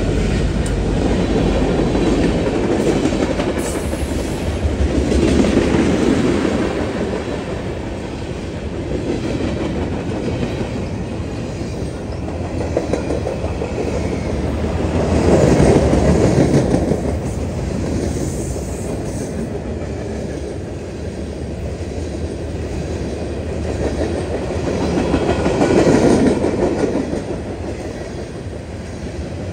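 Mixed freight train rolling past close by: the steady rumble and clatter of its freight cars' wheels on the rails, swelling and easing every several seconds as the cars go by. The deep engine drone of the trailing diesel locomotives fades out in the first second.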